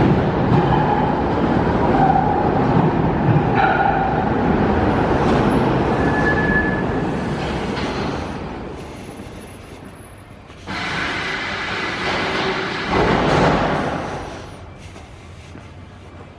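Budapest M1 yellow-line metro train pulling into the station and slowing to a stop, with a loud rumble of wheels and running gear that fades as it halts. About ten seconds in, a sudden loud burst of rushing noise starts and dies away a few seconds later.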